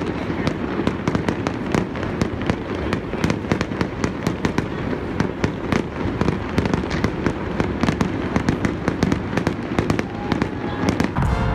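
Fireworks display going off: a dense, continuous run of bangs and crackles over a low rumble.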